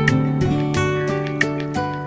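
Background instrumental music led by plucked acoustic guitar, notes picked about three times a second.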